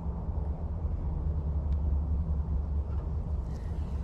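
Steady low rumble of background noise, with no distinct strokes or impacts.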